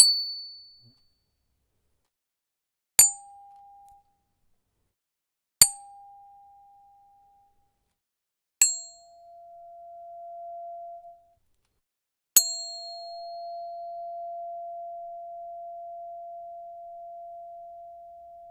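Metal tuning forks struck one at a time, five strikes in all. Each gives a short high clink and then rings with a single pure tone. The first is high and dies quickly, the next ones are lower and ring for one to three seconds, and the last rings on to the end.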